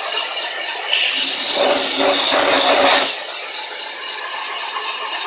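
Van Norman 777S boring bar running with its cutter in a cylinder of a 454 big-block Chevy block: a steady machine whine with several fixed tones. About a second in, a loud hiss joins for about two seconds, then cuts off suddenly.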